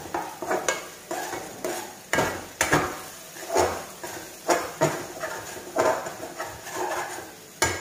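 Metal spoon stirring and scraping thick masala in an aluminium kadai, with about a dozen irregular clinks against the pan over a low sizzle. The masala is well fried, having released its oil.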